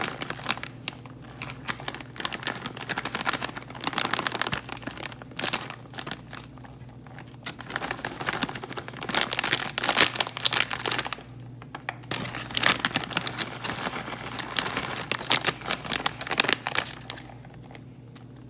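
Plastic bag of shredded cheese crinkling as it is handled, in irregular bursts of crackle.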